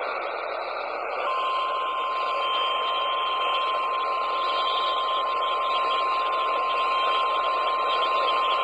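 NOAA Weather Radio 1050 Hz warning alarm tone: a single steady tone starting about a second in and holding, over the receiver's radio static hiss. The tone signals that a warning-level message follows, here a tornado warning.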